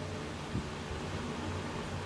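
Steady low hum and hiss of background room noise, with one faint short tick about half a second in.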